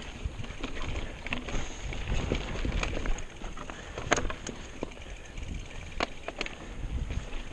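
Mountain bike rolling over rocky dirt singletrack: a steady rumble of tyres on dirt and rock, with scattered sharp clicks and knocks from the bike jolting over rocks, the loudest about four and six seconds in.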